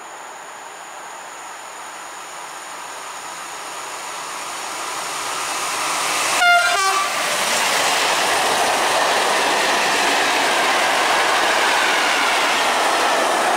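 Freight train of loaded coal wagons running through the station behind an electric locomotive, getting louder as it approaches. About six seconds in the locomotive gives a brief horn blast, the RP1 'attention' warning signal, which drops in pitch as it passes. After that come the steady rumble and wheel clatter of the wagons rolling by.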